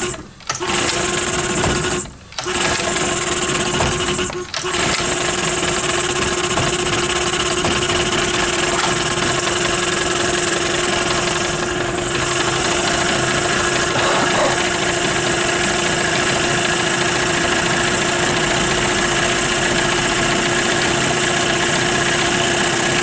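A 9.9 hp outboard motor, cover off, running just after a pull start. It drops out briefly three times in the first few seconds, then settles into a steady idle.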